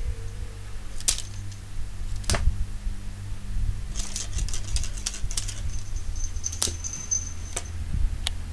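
Light metallic jingling and scattered sharp clicks from a cat's collar tags and a shiny foil wand toy as the cat plays, with a short high ringing tone a little past the middle. A steady low hum runs underneath.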